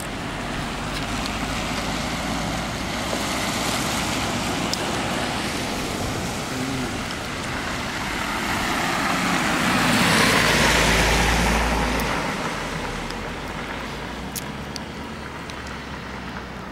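Cars driving by on a wet road, their tyres hissing; one passes close about ten seconds in, the loudest moment, then fades away.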